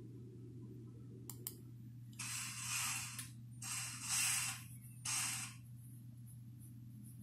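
A sound effect played through a TV's speakers: three separate bursts of hissing, the middle one the longest and loudest, after two faint clicks.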